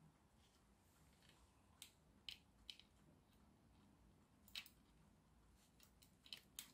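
Near silence, with a handful of faint, scattered clicks from a resistor's wire leads being worked into the spring connectors of a plastic electronics kit.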